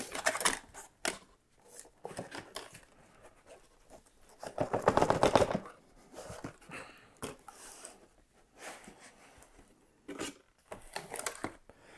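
Packaging being handled during an unboxing: scattered rustles, scrapes and light knocks of a cardboard box and its contents, with a louder stretch of rustling and scraping about five seconds in.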